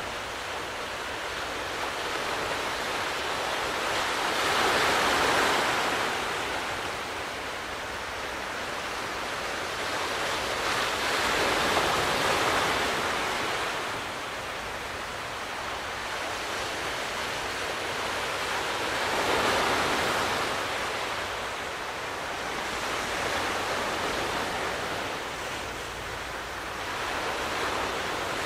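Sea waves breaking and washing on the shore, swelling up and fading away about every six or seven seconds.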